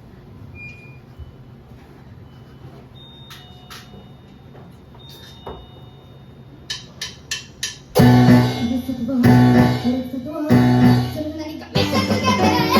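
Quiet room, then four evenly spaced sharp clicks, a drumstick count-in, and a band comes in loud on the fifth beat with keyboard chords, a heavy bass line and drums, playing a riff with short stops.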